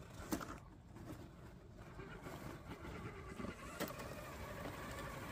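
Electric motor and drivetrain of an RC scale crawler pickup whining as it crawls over snow. The whine grows louder in the second half, and there are two sharp clicks, one just after the start and one near four seconds.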